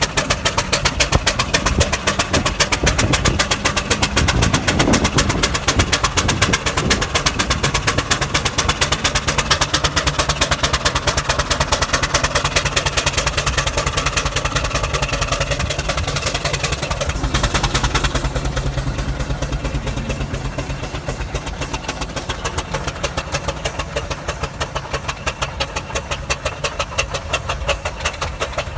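Steam traction engine working under load as it tows a Scammell Junior Constructor ballast tractor, its engine beating at a fast, steady rate. About two thirds in the sound turns duller, then slowly fades.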